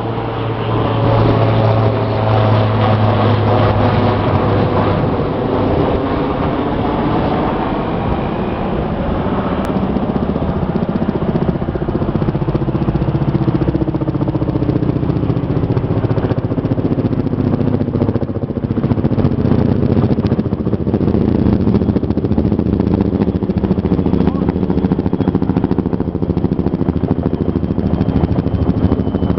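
Helicopters flying low overhead: a loud, steady rotor chop and engine drone whose pitch slowly shifts as they pass.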